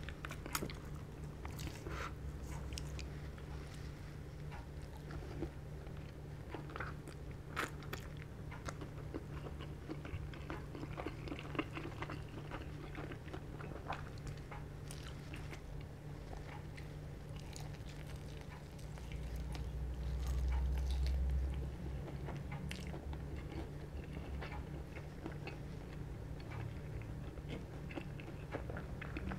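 Close-up biting and chewing of crispy fried chicken (KFC Szechuan-style), with scattered sharp crunches of the battered skin. A low rumble swells for a few seconds about two-thirds of the way through, over a steady low hum.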